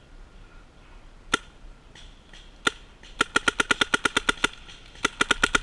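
Paintball marker firing: two single shots, then a rapid string of about a dozen shots in just over a second, and a shorter burst of about six near the end.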